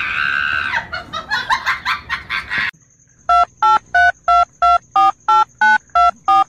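About ten short electronic beeps, roughly three a second at slightly changing pitches, like phone keypad tones, played as each press of a finger on a cat's face. Before them comes a drawn-out, voice-like cry, then quick rhythmic sounds from the previous clip.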